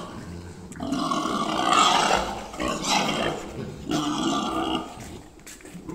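Pigs squealing and grunting in several loud bouts with short pauses between, as they are caught and driven for sale.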